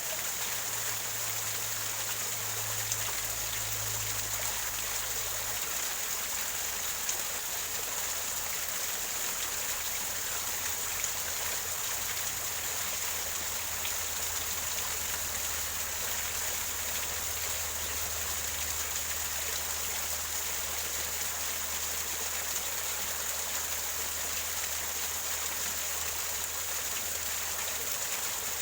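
Small waterfall gurgling and splashing over rocks, a steady rush of water.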